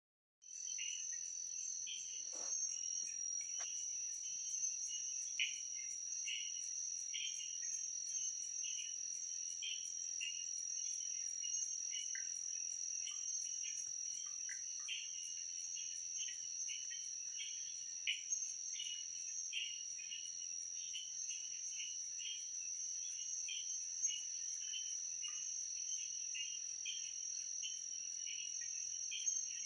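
Chorus of night insects such as crickets: a steady, high-pitched continuous trill, with many short chirps from other insects repeating just below it.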